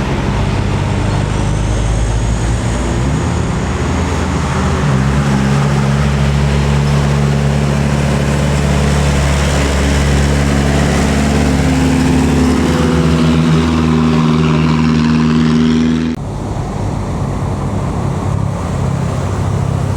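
Heavy diesel vehicle engine running, louder from about five seconds in, its note slowly rising. It cuts off abruptly about sixteen seconds in, leaving steadier engine and road noise.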